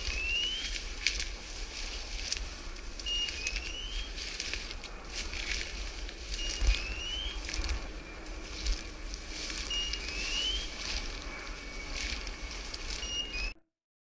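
Footsteps crunching and rustling through dry bracken, with wind buffeting the microphone. A short high tone followed by a rising chirp repeats about every three seconds. All sound cuts off shortly before the end.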